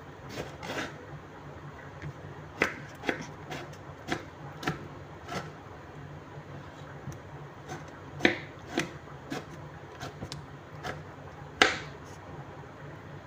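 Kitchen knife slicing a tomato on a wooden cutting board: irregular taps and knocks of the blade against the board, three much louder than the rest, over a steady low hum.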